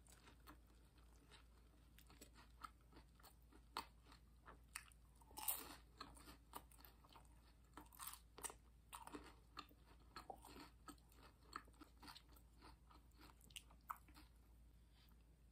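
A person chewing a mouthful of food with the mouth closed: quiet, irregular mouth clicks and smacks, a few louder ones around the middle.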